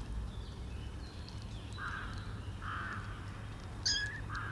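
A crow cawing three times, short harsh calls in the second half, with a brief high chirp just before the last one, over a steady low background hum.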